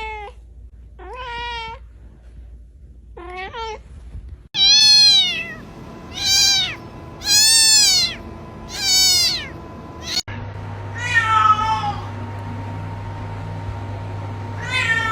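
Domestic cats meowing, about eight separate meows, each rising then falling in pitch. The loudest run of four comes in the middle, and the sound cuts off abruptly twice between clips.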